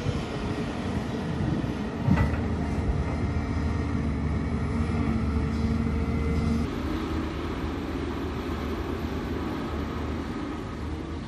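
Diesel engine of a Volvo EC290B excavator running steadily under work, with a single knock about two seconds in. About two-thirds of the way through, the sound changes to a loaded dump truck's diesel engine pulling it along a dirt track.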